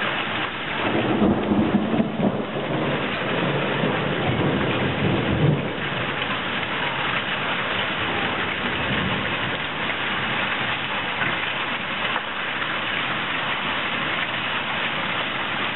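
Hailstorm: hailstones and heavy rain pelting down on the patio, pool and garden in a dense, steady wash of noise, louder and deeper for the first few seconds.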